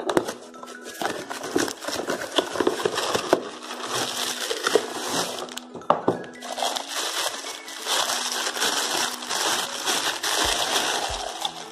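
Plastic packaging crinkling and rustling as a pan in a clear plastic bag is pulled from its cardboard box and handled, with dense crackling and small sharp clicks throughout.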